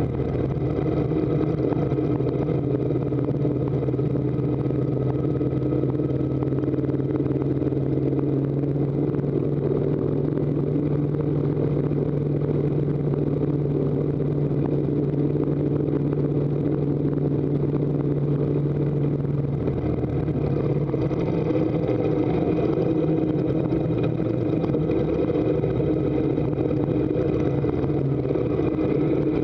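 Harley-Davidson V-twin engine running steadily under load as the motorcycle pulls up a mountain road. Its note shifts slightly lower about two-thirds of the way through.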